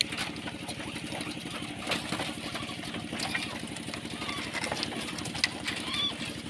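An engine running steadily at idle, a fast even pulsing, with a few faint short chirps above it.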